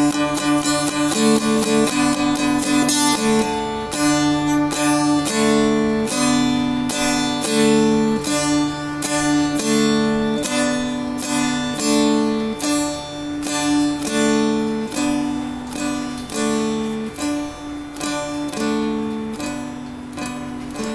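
Seagull Merlin, a four-string fretted stick dulcimer, being played: a short melodic motif picked over steadily ringing drone strings. It is strummed rapidly for the first few seconds, then plucked as slower single notes, repeating the phrase.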